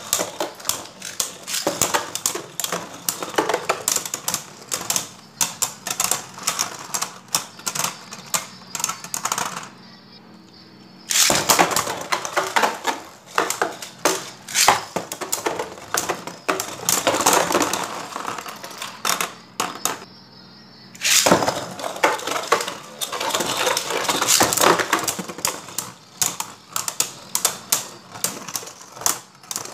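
Beyblade Burst spinning tops (Spriggan Requiem, Nightmare Longinus and Seig Xcalibur) clashing with each other and rattling against the walls of a plastic stadium: rapid, irregular clicks and clacks. There are two short lulls, about ten and twenty seconds in.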